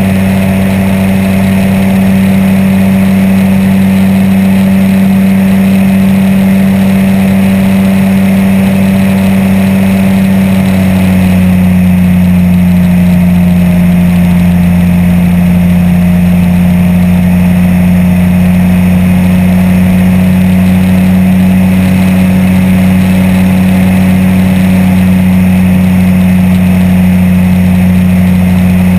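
Apollo Jet Star microlight trike's engine and pusher propeller running steadily in cruise flight, loud and constant. About eleven seconds in, the pitch drops slightly and settles lower as the engine eases back a little.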